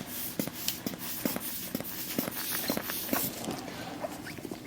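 A long breath out through the mouth during nasal-balloon sinus dilation, with many small irregular crackling clicks through it. The breath fades about three seconds in.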